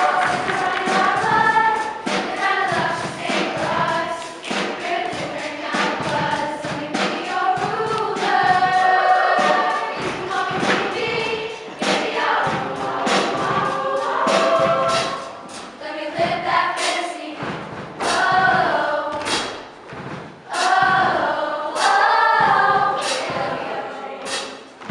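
A group of voices singing together without words, over many sharp percussive hits at an uneven rhythm.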